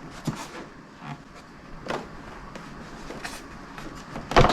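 Clunks and knocks of a plastic motorcycle trunk lid, with an aluminium luggage rack on it, being handled and turned over; a few light knocks, then a louder knock near the end.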